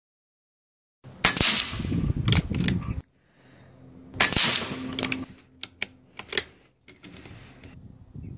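Two shots from an Ataman M2 .25-calibre PCP air rifle, about three seconds apart, each a sharp crack followed by a short clatter. A few lighter clicks come after the second shot.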